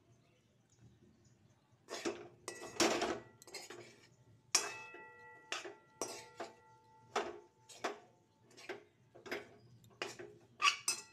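Metal spoon scraping and knocking against a metal kadai as dry, crumbly semolina is stirred, the pan ringing briefly after some strokes. The strokes start about two seconds in and come roughly every half-second to second.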